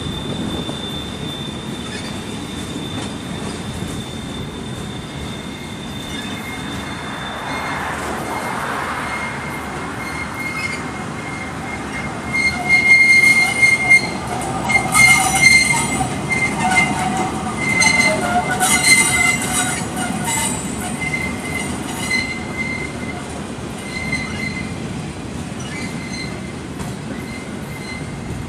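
Freight train of flatcars rolling past with steady rumbling wheel noise. A thin, high, steady wheel squeal runs for the first several seconds, then louder squealing at several pitches rises and wavers from about twelve seconds in and fades again after about twenty-two seconds.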